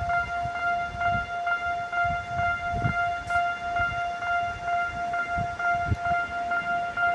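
Japanese railroad crossing warning bell ringing, an electronic 'kan-kan' tone repeating evenly about two and a half times a second.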